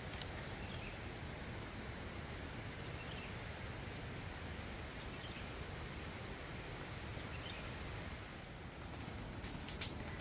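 Steady outdoor ambient hiss, with a few faint, short bird chirps scattered through it.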